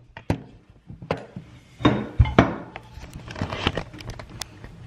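Handling noise as a handheld compact camera is held and moved close up in a small room: scattered knocks, taps and rustles, the loudest about two seconds in, over a faint low hum.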